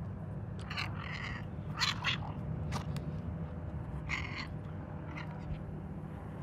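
A gray short-haired cat giving several short meows and chirps, scattered through a few seconds, over a steady low rumble.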